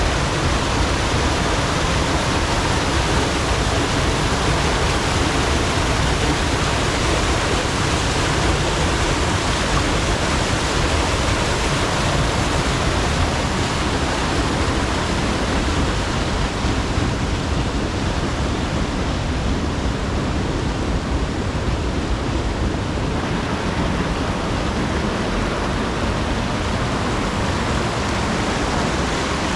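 Steady, loud rushing of water, an even hiss with no breaks.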